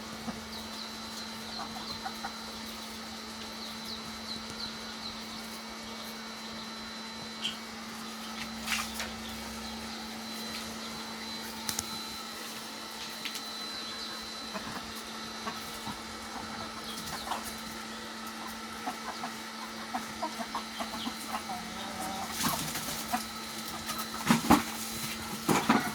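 Desi chickens clucking in a poultry house, over a steady low hum with scattered small clicks; the calls get louder near the end.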